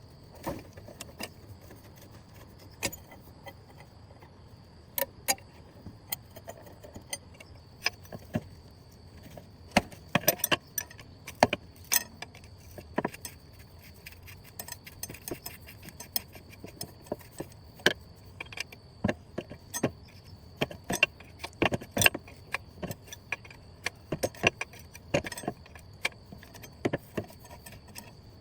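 Irregular metallic clinks and clanks of hand tools and metal parts being handled while working on an old Jeep, in scattered clusters. A faint steady high tone runs underneath.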